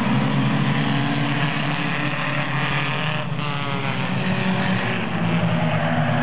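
A pack of four-cylinder stock race cars running at full throttle, accelerating away from a green-flag start. The engine note is dense and steady, with cars passing close by a little over three seconds in.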